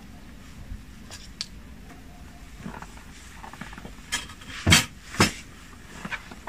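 A knife and metal skewers clinking and scraping against a plate as a roasted guinea fowl is carved, with a few sharper clinks toward the end.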